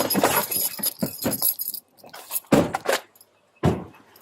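Keys and metal gear jangling and rattling with movement for the first two seconds, then two dull thumps about a second apart near the end.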